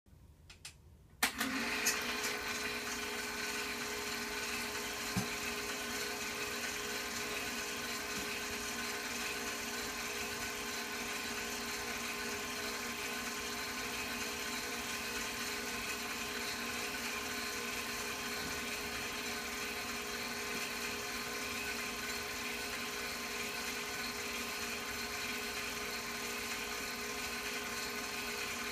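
Movie projector running with a steady motor whir, starting after a couple of clicks about a second in.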